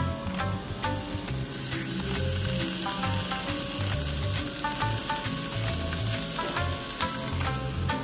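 Cube of marbled beef sizzling as it sears on a small black iron pan over a tabletop burner; the hiss starts about a second and a half in and fades near the end.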